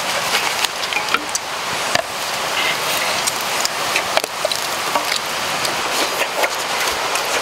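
A wok of water boiling over a wood fire with large sea snails in it: a steady bubbling hiss peppered with many small pops and crackles.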